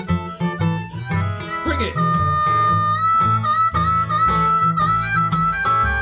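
Blues harmonica solo over a steady, rhythmically strummed and picked acoustic guitar. About two seconds in, the harmonica bends up into one long held note.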